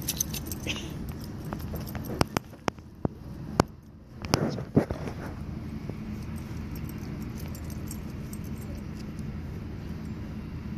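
Scattered sharp metal clicks and jingles from a Great Pyrenees' collar tags and leash clip as the dog moves close, with a brief rustle about four and a half seconds in. After that only a steady low rumble of distant traffic.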